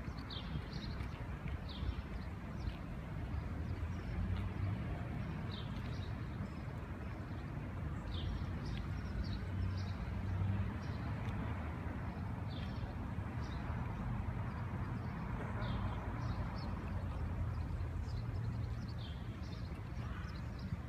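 Small birds chirping in short, scattered calls over a steady low rumble of traffic.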